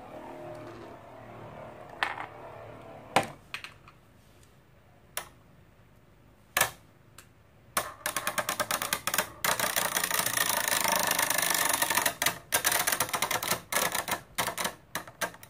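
Two Infinity Nado spinning tops battling in a plastic stadium: scattered sharp clacks as they strike each other, then from about eight seconds in a rapid, continuous clattering as the tops grind together rim to rim.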